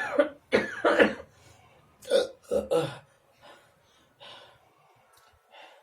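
A person coughing hard four times in the first three seconds, a chesty cold's cough, then a few faint breaths or sniffs.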